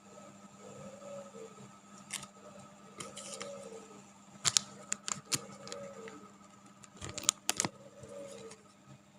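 Scattered sharp clicks and taps, the loudest in two clusters about halfway through and near the end, over a steady hum.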